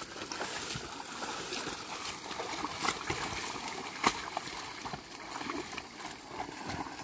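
Wet mud and water sloshing and splashing as a pair of oxen drag a wooden toothed harrow through a flooded rice paddy, with a couple of sharp knocks, the loudest about four seconds in.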